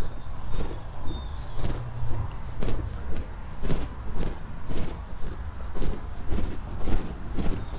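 Footsteps of a person walking at a steady pace, about two steps a second, over a steady low rumble.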